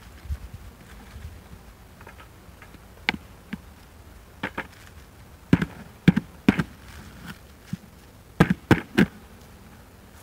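Plastic buckets and lid of a double-bucket bee vacuum knocking and clattering as they are handled and opened, a dozen or so sharp knocks, the loudest in a cluster in the second half. Honey bees buzz faintly inside the bucket.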